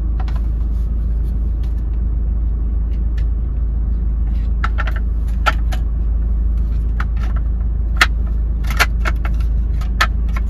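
Scattered clicks and light knocks as a car radio's mounting frame and adjustable bracket are handled and shifted, mostly in the second half, over a steady low hum.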